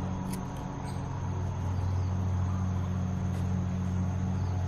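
A steady low mechanical hum, like an engine running at a constant speed, with a faint steady high-pitched tone above it.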